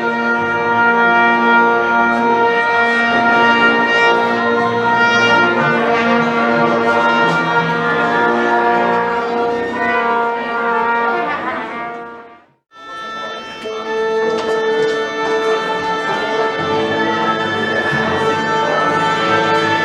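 An orchestra tuning up: many instruments holding and shifting separate notes at once, with no piece being played. The sound drops out suddenly for a moment a little past halfway, then resumes.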